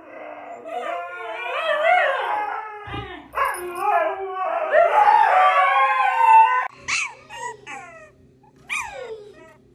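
Two huskies howling and yowling back and forth in long, wavering, talking-like calls. These cut off abruptly about two-thirds of the way in. Two short, high squeals falling in pitch follow, one a couple of seconds after the other.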